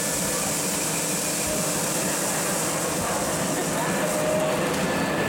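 Steady babble of many voices in a large exhibition hall, over a constant engine-like hum.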